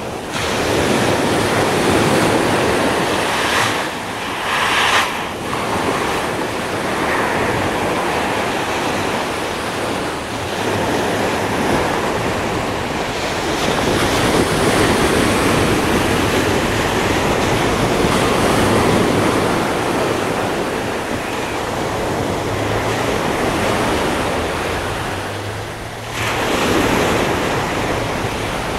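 Small waves breaking and washing up a sand and pebble beach, the surf rising and falling with each wave.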